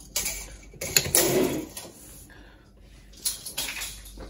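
Rustling and knocking of 300-ohm ladder line being handled and laid out on a wooden worktop, with tools moved on the wood. The sound comes in three bursts, the loudest about a second in.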